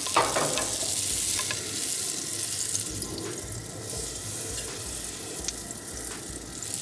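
Butter melting and sizzling in a hot nonstick frying pan: a steady hiss with a few faint small pops.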